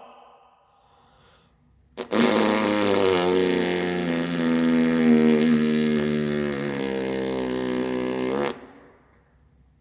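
One long, loud fart noise of about six seconds, a steady-pitched drone that starts with a sharp crack about two seconds in and stops abruptly.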